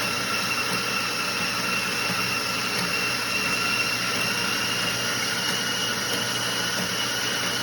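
Motorized treadmill running steadily: a constant motor whine over the hiss of the moving belt.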